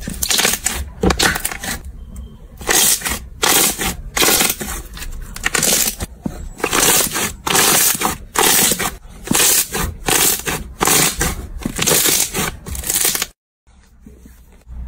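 Slime being squeezed and pressed by hand, crackling in loud repeated bursts about two a second. The sound cuts off suddenly near the end, and a quieter, steadier handling sound follows.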